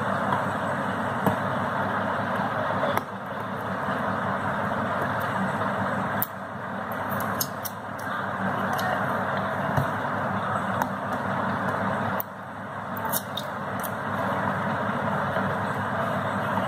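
A small cardboard product box being worked open by hand: a few faint clicks and scrapes over a steady rushing background noise that drops in level a few times.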